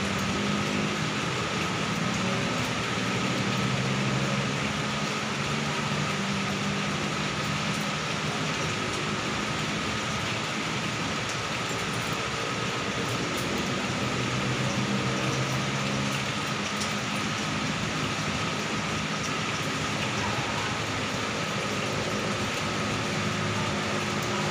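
Steady hiss of heavy rain mixed with the hum of jammed city traffic, with a faint steady whine throughout.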